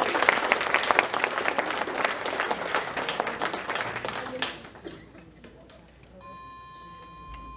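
Audience applauding, dying away about five seconds in. A steady held note begins about a second later.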